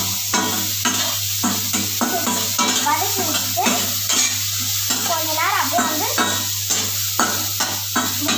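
Onions, green chillies and tomato sizzling in hot oil in a stainless steel kadai, with a steel spatula stirring and scraping against the pan in a run of quick clicks and scrapes.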